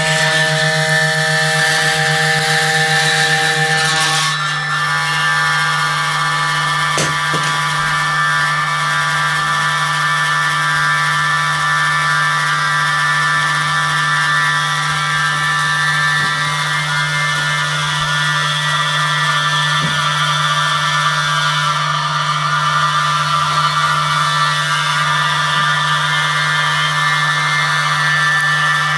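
Ambient drone music of layered held tones from an electric guitar laid flat and run through effects pedals, over a steady low tone. A set of the middle tones drops away about four seconds in, the rest sustaining unchanged.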